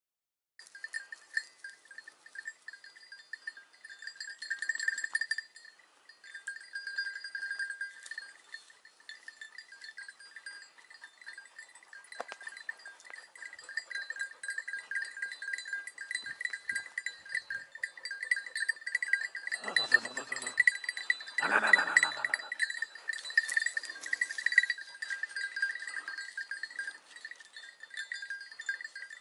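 A small metal bell on a hunting hound jingling and ringing continuously as the dog moves, with two short animal cries about two thirds of the way through.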